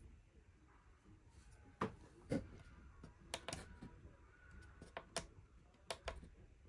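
Scattered short, sharp clicks and knocks in a quiet room, the last close pair as a finger presses the push button on a round panel-mount voltmeter.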